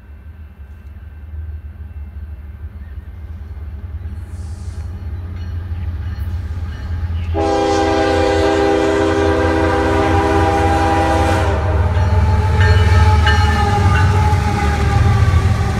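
Potash freight train's diesel locomotives approaching at speed, a low rumble that builds steadily louder. About seven seconds in, the air horn sounds one long chord of several steady tones for about four seconds. Near the end the lead locomotive passes close by at its loudest.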